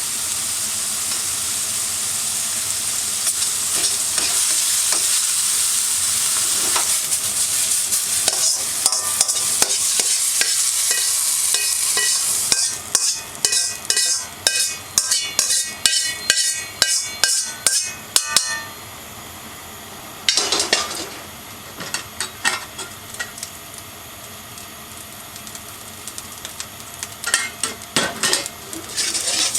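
Food sizzling in a hot hand-hammered iron wok (Yamada Kogyosho, 30 cm, 1.2 mm thick). Partway through, a metal utensil scrapes and strikes the wok in quick strokes, and the wok rings with each one. Then it goes quieter, with scattered clinks and a return of the sizzle near the end.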